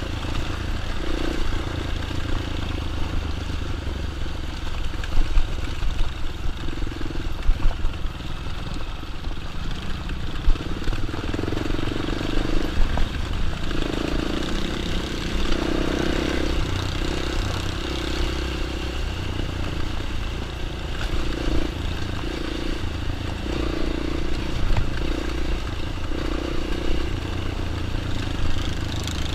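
Dirt bike engine running, its note swelling and easing every second or two.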